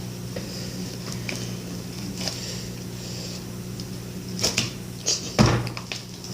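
A steady low hum with faint clicks, then a few sharp knocks and bumps in the last two seconds, the loudest about five seconds in.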